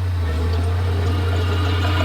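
Komatsu D31P bulldozer's diesel engine running steadily with a constant deep hum.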